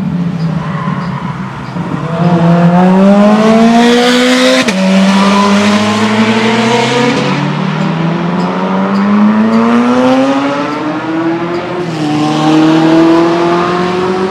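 Ferrari F40's twin-turbo V8 accelerating hard on track, the engine note climbing in pitch and dropping sharply at three upshifts, about five, seven and twelve seconds in.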